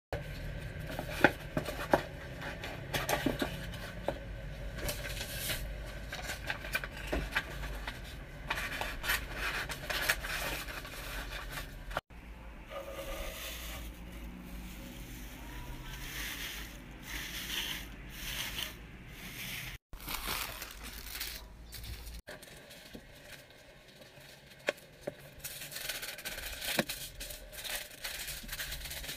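Order-packing handling sounds: gloved hands crinkling and rustling plastic packaging and wrappers, with scrapes, tearing and sharp little clicks and taps. The texture changes abruptly at three points where one short clip gives way to the next.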